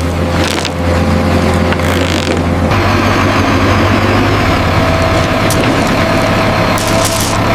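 Heavy construction machinery's diesel engine running steadily, with a change in its low note a little under three seconds in and a few short, sharp noises over it.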